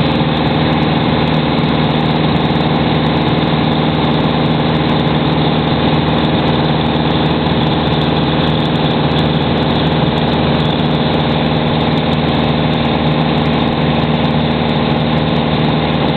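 A Piper Archer's four-cylinder Lycoming engine and propeller running steadily at cruise power, heard inside the cockpit as a loud drone that holds one pitch throughout.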